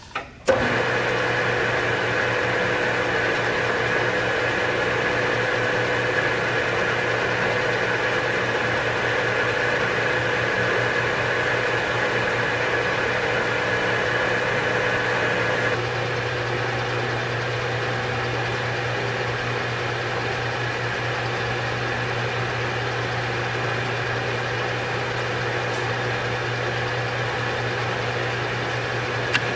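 Harrison M300 engine lathe starting with a click about half a second in, then its spindle and headstock gearing running steadily with a hum and a higher whine. The whine drops a little about halfway through.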